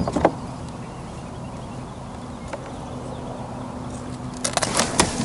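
Knocks and clatter of a striped bass being handled and untangled from fishing lines in a plastic kayak: a few sharp knocks at the start and a quick cluster near the end, over a faint steady low hum.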